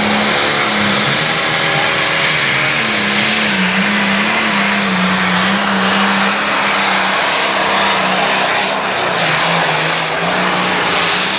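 Limited Pro Stock pulling tractor's 640-cubic-inch diesel engine running flat out under load as it drags the weight-transfer sled. It is a loud, steady engine note that wavers slightly in pitch as the load shifts.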